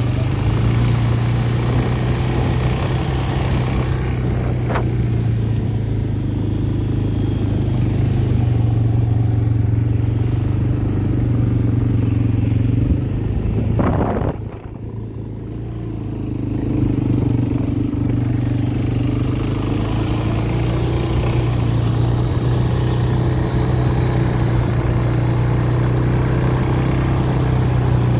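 Quad bike engine running steadily under way, a continuous low drone. About halfway through the engine sound drops away briefly, then builds back up as the bike picks up again.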